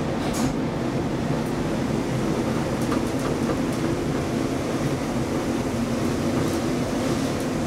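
Elevator car travelling in its shaft: a steady low rumble and hum, with a few light clicks and rattles.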